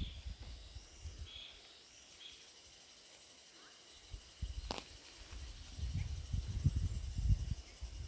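Forest trail ambience: a faint steady high insect buzz with a few short bird chirps in the first couple of seconds, under bursts of low rumble that fade out in the middle and come back in the second half. A single sharp click sounds a little past halfway.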